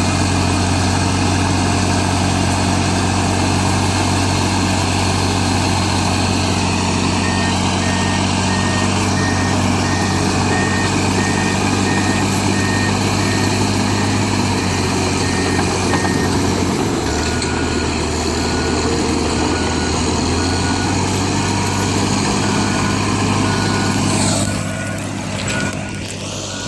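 Diesel engines of crawler bulldozers running steadily, with a backup alarm beeping about one and a half times a second from about a quarter of the way in; about two-thirds of the way through a lower-pitched backup alarm takes over and beeps to the end, the machines reversing.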